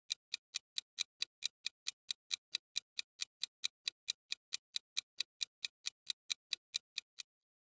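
Countdown-timer ticking sound effect: a steady run of sharp clock ticks, about four and a half a second, that stops shortly before the end.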